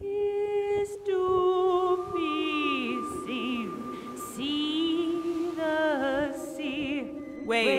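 Music: wordless singing with a wavering, vibrato-like tone over long held notes that slowly slide down in pitch.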